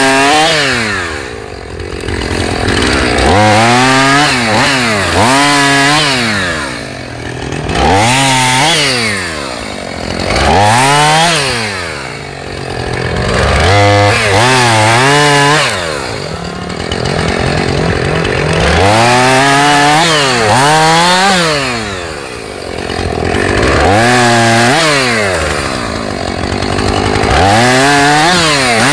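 Husqvarna two-stroke chainsaw cutting through thin dead pine logs one after another, its engine revving up for each cut and dropping back toward idle between cuts every two to three seconds.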